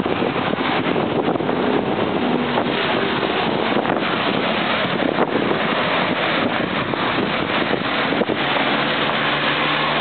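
Steady rush of traffic on a multi-lane urban expressway, mixed with wind buffeting the microphone. Near the end a passing vehicle's engine hum joins in.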